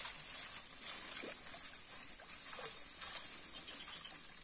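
Steady high-pitched chorus of insects, with a few faint soft ticks.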